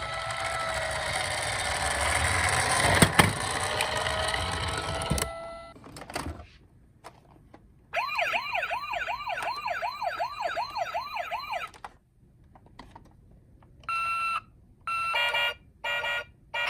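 A toy minicar rolling down a slope with a steady rushing rumble for about five seconds. Then a toy emergency vehicle's electronic siren wails quickly up and down, about three cycles a second, for some four seconds. Near the end come three or four short, clipped siren tones.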